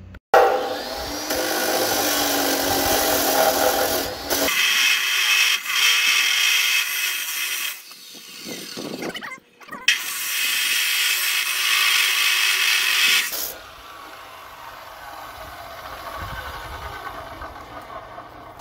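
DeWalt abrasive chop saw cutting through square steel tubing: two loud grinding passes, the first from just after the start to about eight seconds in and the second from about ten seconds in, then a quieter stretch for the last few seconds.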